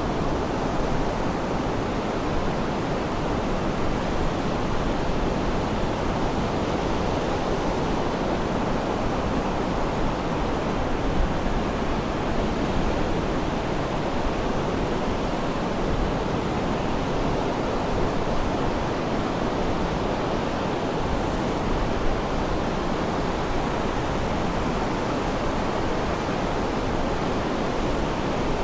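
Steady, even rush of sea surf, without distinct swells or breaks.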